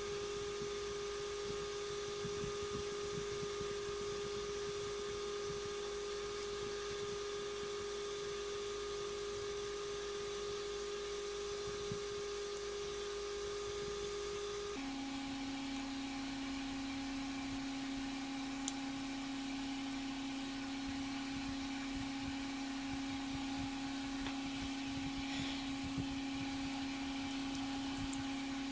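A steady motor-like hum at a single pitch, which drops abruptly to a lower pitch about halfway through. A few faint clicks sound over it.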